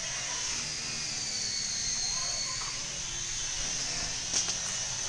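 Insects droning steadily at a high pitch, the tone wavering and dipping slightly about two seconds in, with one short click near the end.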